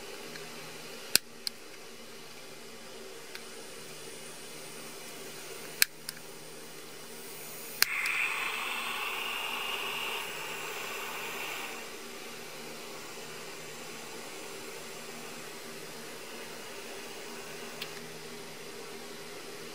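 Handheld gas soldering iron being lit: a few sharp clicks, then a loud click about eight seconds in followed by about four seconds of gas hissing, which stops suddenly.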